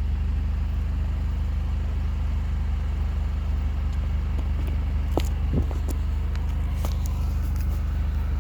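Mini Cooper S R53's supercharged 1.6-litre four-cylinder engine idling with a steady, even low note. A few short clicks come about five and seven seconds in.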